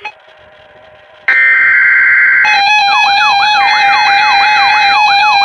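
Canadian emergency alert attention signal on a broadcast warning. After a short pause a steady high tone comes on; about a second later it turns into a layered, warbling alert tone with pitch sweeps repeating about three times a second.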